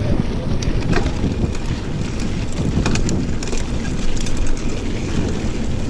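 Wind buffeting the microphone of a body-worn camera on a bicycle moving at road speed, a dense low rumble, with a scattering of light clicks and rattles.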